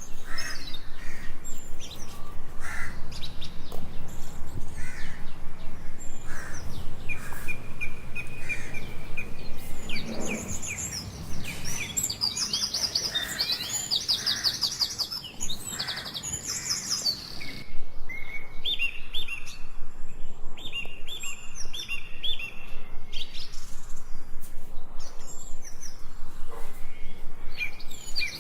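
Several birds chirping and calling in quick, repeated short notes, with trilling runs about midway and again later on.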